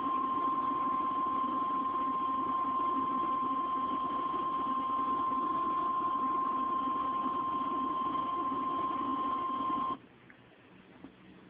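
NOAA Weather Radio warning alarm tone: one steady, loud tone of about 1050 Hz over radio hiss, signalling that a severe weather warning is about to be read. It cuts off suddenly about ten seconds in, leaving only faint hiss.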